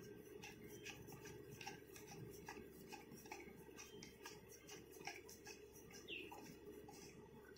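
Faint, irregular clicking and ticking as the handle of a WS858 wireless karaoke microphone is twisted back onto its speaker head, closing the battery compartment, with a brief faint squeak near the end.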